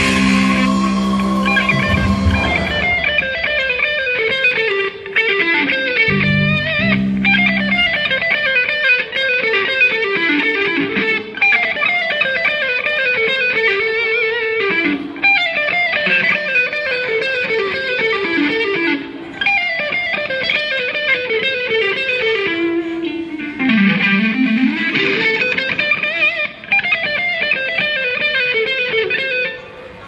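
Electric guitar playing fast descending lead runs, one after another every couple of seconds, with a slide down to low notes and back up about 24 seconds in.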